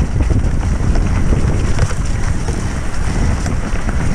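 Wind buffeting the microphone while a mountain bike rattles and knocks over rough trail at speed, a dense run of irregular knocks under a steady rush.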